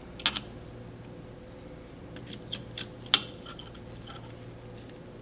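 A few small metallic clicks and taps as a hex driver and the stainless-steel cap of a piston-cylinder assembly are handled and the cap is screwed down; the sharpest click comes a little past three seconds in, over a faint steady hum.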